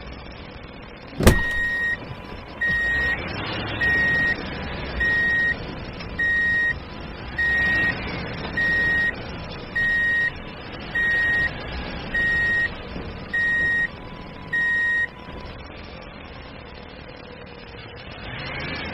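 Electronic beeper sounding a steady run of high beeps, about a dozen of them roughly one every 1.2 seconds, each about half a second long. A sharp click comes just before the first beep, and the beeping stops about three-quarters of the way through.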